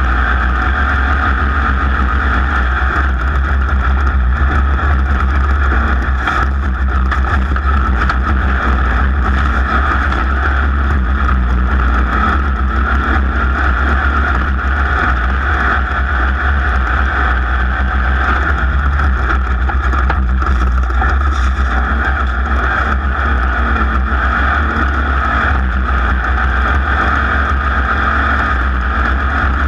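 Racing vehicle's engine running hard and steadily at speed, a loud continuous drone with no shifts in pitch.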